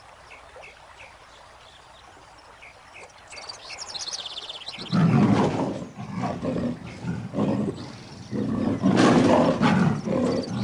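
Tiger snarling and roaring in loud, rough bursts from about halfway in as it attacks. Before that, birds chirping faintly.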